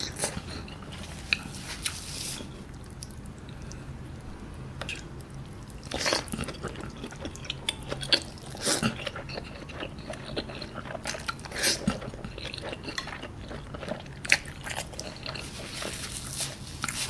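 Close-up eating sounds of a person chewing saucy tteokbokki (chewy rice cakes and fish cake), with scattered short, sharp wet mouth sounds.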